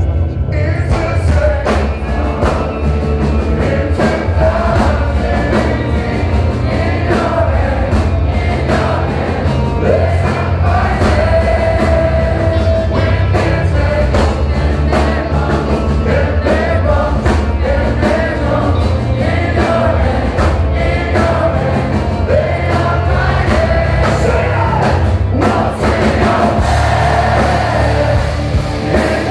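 Rock band playing live, loud and steady: singing over heavy guitars, bass and drums, heard from inside the audience.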